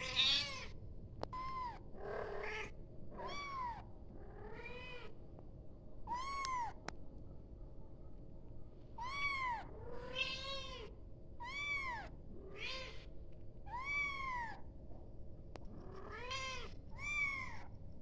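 Kitten mewing: about a dozen high-pitched calls, each rising and then falling in pitch, repeated every second or so with a few short pauses. A kitten calling for its mother.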